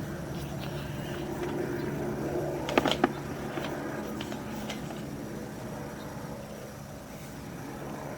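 A steady low mechanical hum that slowly fades, with a few sharp clicks about three seconds in.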